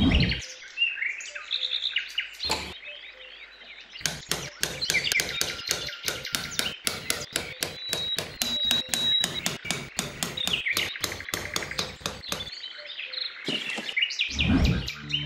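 Small birds chirping, with a fast run of light taps and clicks from about four seconds in until near twelve seconds.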